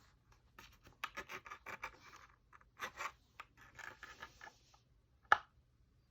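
Irregular scratchy crackling and rustling in short clusters, then one sharp click about five seconds in.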